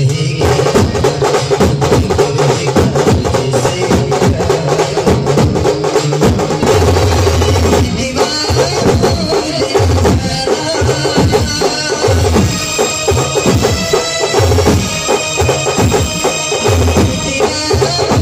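Banjo party street band playing, a group of large steel-shelled drums beating a fast, dense rhythm under a melody line, with deep low beats recurring about every second from midway on.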